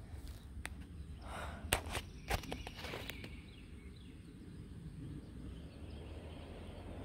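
Faint outdoor ambience: a steady low rumble with a few sharp clicks or footfalls in the first three seconds, then quieter.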